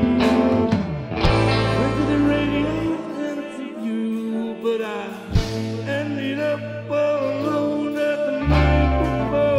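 Live blues band playing: a harmonica wails into a cupped handheld microphone over electric guitars, bass and drums.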